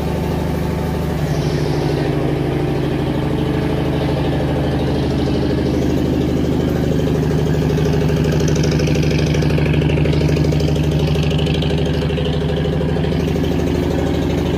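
Diesel locomotive engine idling with a steady low throb.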